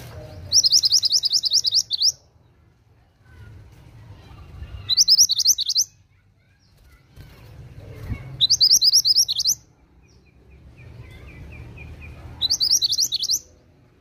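Scarlet minivet (mantenan) calling: four bursts of rapid, high, upward-sweeping notes, each burst about a second long, coming about every four seconds.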